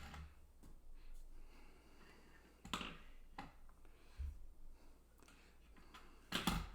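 Plastic toy aeroplane being handled: scattered light clicks and knocks of hard plastic, with one dull thump about four seconds in.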